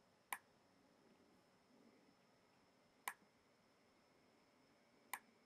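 Three sharp single computer mouse clicks, spaced a few seconds apart, over faint background hiss.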